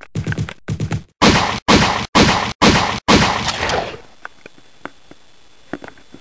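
A rapid volley of handgun shots, about two a second, each sharp bang ringing out briefly; the last one rings longest and the shooting stops about four seconds in. Faint scattered knocks and scuffling follow.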